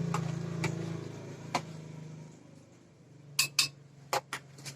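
Sharp clinks of a spoon against glass, about five in quick succession in the second half, as sugar is spooned into the drink. A low steady hum fades out about two seconds in.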